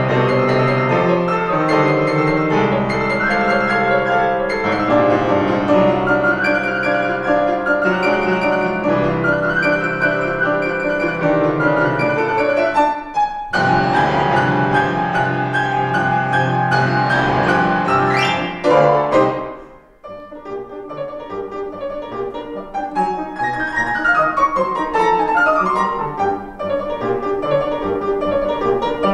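Grand piano played four hands: dense, loud chords, then a fast run sweeping up the keyboard about two-thirds of the way through that breaks off into a brief hush, followed by softer running figures.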